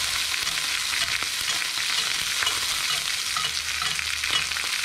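Trout frying in hot oil in a cast-iron skillet: a steady sizzle with small crackling pops scattered through it.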